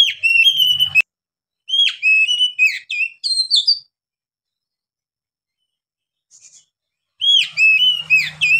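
Oriental magpie-robin (kacer) singing loud, clear whistled phrases of short rising and falling notes. The song comes in three bursts, with a pause of about three seconds before the last one. A single sharp click sounds about a second in.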